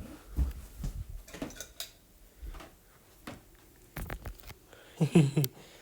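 Scattered light knocks, clicks and rustles of objects being handled, with a sharper pair of knocks about four seconds in and a brief voice murmur near the end.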